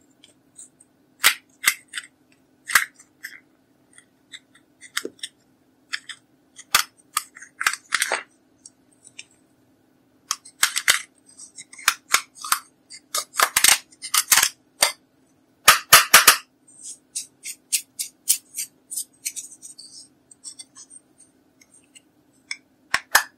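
Metal ball-tipped tool scraping and digging pressed powder blush out of its plastic pan: irregular crisp scratches and clicks as the powder crumbles, coming in clusters, with a quick double click near the end.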